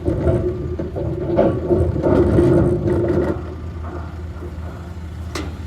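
A vehicle engine idling with a steady low hum. For about the first three seconds a louder mechanical drone with some knocks runs over it, then it drops away. A single sharp click comes near the end.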